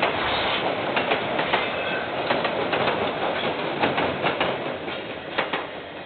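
KiwiRail train wagons rolling past on the rails, the wheels clicking over rail joints. The sound fades near the end as the train draws away. It is heard through a security camera's microphone.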